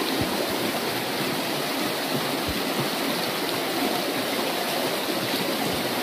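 Shallow, rocky river rushing over stones in a steady, even wash of water noise.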